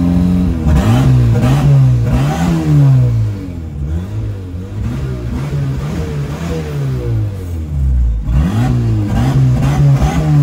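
Turbocharged mini truck engine idling briefly, then revved over and over, its pitch rising and falling with each blip of the throttle.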